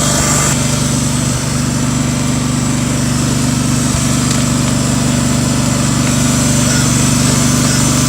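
Cub Cadet garden tractor engine running steadily at an even speed.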